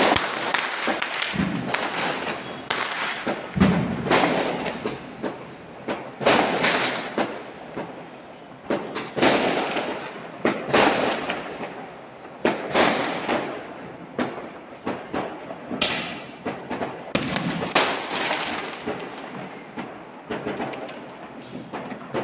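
Firecrackers going off all around, sharp bangs about once a second at irregular intervals, each trailing an echo, over a steady background of more distant crackling.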